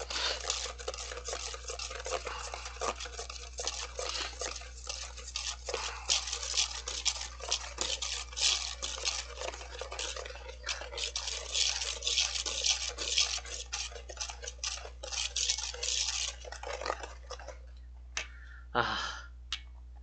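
Wire balloon whisk beating dalgona coffee (instant coffee, sugar and water) by hand in a stainless steel bowl: fast, continuous scraping and clicking of the wires against the metal. The mixture is not yet whipped stiff. The whisking stops about three seconds before the end.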